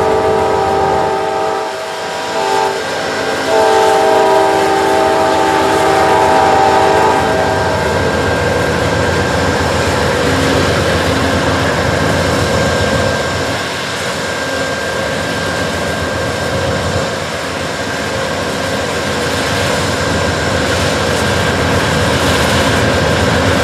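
Norfolk Southern freight locomotive horn sounding a chord of several tones: a blast that cuts off about a second in, then one long blast of about four seconds. After that comes a steady rumble of the approaching train.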